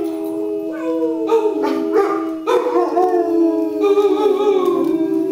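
Two dogs howling together in long, overlapping, wavering notes.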